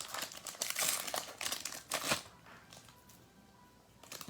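Plastic trading-card pack wrapper crinkling as it is handled and torn open, for about two seconds, then going quiet.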